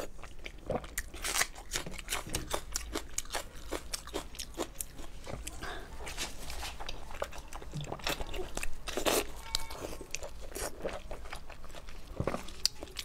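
Close-up eating sounds of a person biting and chewing a large braised blood sausage: many short, irregular wet smacks and clicks as the casing and filling are bitten through and chewed.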